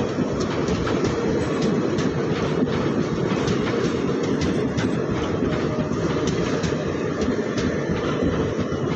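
Express train's ICF passenger coaches rolling past, a steady rumble with the wheels clacking over rail joints about two to three times a second.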